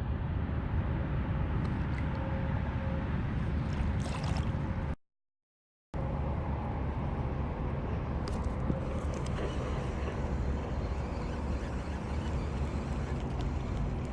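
Wind buffeting the microphone with water lapping against a kayak, a steady rushing noise with a few faint ticks. About five seconds in the sound drops out to silence for about a second, then resumes.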